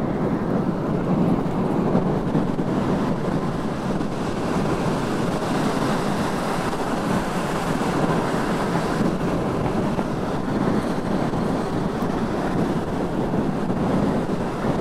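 Steady rush of wind over the microphone from riding an electric unicycle at speed: an even, unbroken noise with no distinct tones.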